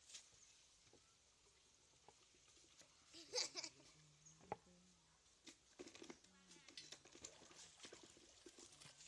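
Faint scattered splashing and trickling of shallow pond water as hands grope around inside a bamboo polo fish trap, with a brief louder burst about three and a half seconds in.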